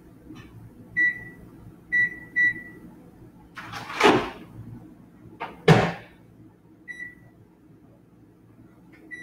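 Microwave oven keypad beeping as buttons are pressed: three short beeps in the first few seconds, another near seven seconds and one at the end. Between them come two louder clunks, a longer one about four seconds in and a sharp bang just under six seconds in.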